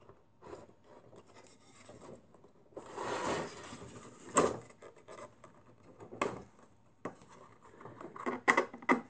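Handling noise from a camera holder being moved up on its stand: scraping and rubbing, a sharp click about four seconds in, another about six seconds in, and a quick run of clicks near the end.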